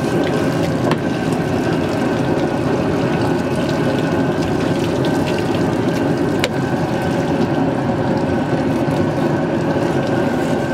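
Steady rush of water running from a garden hose, with a faint steady hum under it and two short clicks.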